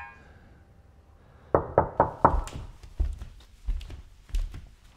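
Loud knocking on a front door: a quick run of four knocks about a second and a half in, followed by slower single knocks.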